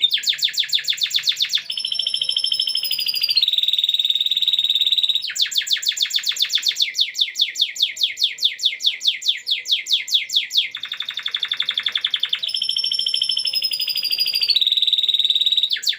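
Domestic canary singing a long, loud song in the lovebird-like style it was trained to, with rapid trills of quickly repeated notes alternating with held whistled notes that bend at their ends.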